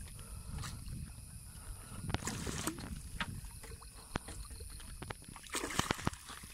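A hooked fish splashing at the water's surface as it is played in and scooped into a landing net, with louder splashes about two seconds in and again near the end, and scattered knocks from handling the rod and net.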